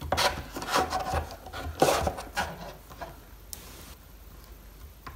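3D-printed PETG bracket being forced against a wooden table edge, with a screwdriver through its hole, to try to split its layers: a run of creaks, scrapes and knocks of plastic and metal on wood, the strongest about two seconds in, then it goes quiet.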